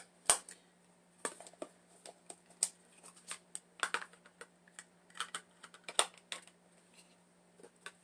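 Irregular light clicks and taps of small plastic items being handled on a desk, over a faint steady low hum.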